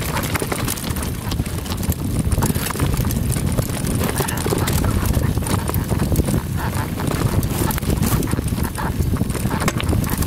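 Bike rattling down a bumpy dirt trail, heard through a handlebar-mounted camera: a constant clatter of sharp knocks from the bike and the camera mount over a low rumble of tyres on the ground.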